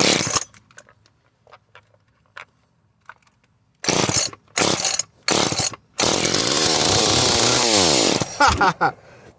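Echo CS-303T chainsaw's small two-stroke engine being pull-started on a shot of starting fluid. After a short burst at the start and a pause, four quick pulls of the recoil starter bring it to fire and run for about two seconds. It then dies away with falling pitch: it runs only on the starting fluid, showing that the coil and flywheel work.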